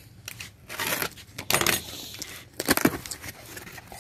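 Cardboard box being opened: a box cutter slitting the packing tape, then the cardboard flaps pulled open with a series of short scrapes and rustles, and a couple of sharper knocks near the end.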